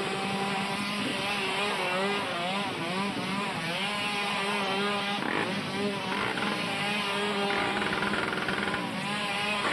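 Dirt bike engine revving up and down over and over as the bike is ridden in tight circles, with a steadier engine drone underneath.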